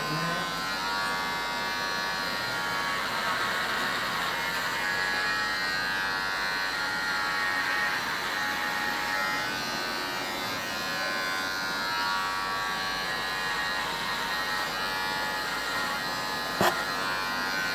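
Cordless electric hair clippers buzzing steadily while they cut hair close to the scalp on the back and side of a head. A single sharp click sounds near the end.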